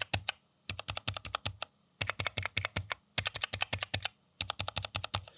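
Close-miked mechanical keyboard typed on in five quick bursts with short pauses between them. The keys go between yellow, brown and silent switches to compare their sound.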